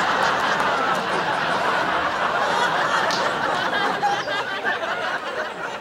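Sitcom studio audience laughing, a dense wash of many people's laughter that eases off near the end.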